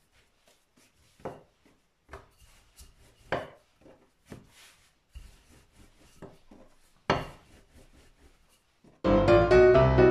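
Bread dough being shaped by hand and rolled out with a wooden rolling pin on a kitchen countertop: soft rubbing with scattered knocks, a few of them sharper. About nine seconds in, piano music starts suddenly and is the loudest sound.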